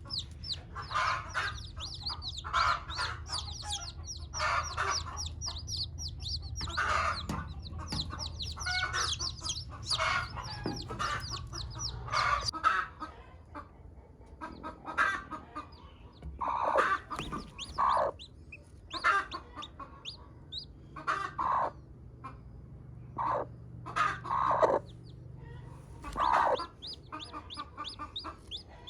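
A domestic hen clucking repeatedly, with newborn chicks giving many short, high, falling peeps, thickest in the first half.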